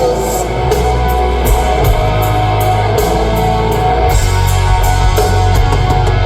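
Live rock band playing an instrumental passage: electric guitar over bass and drums, with cymbals struck at a regular pulse.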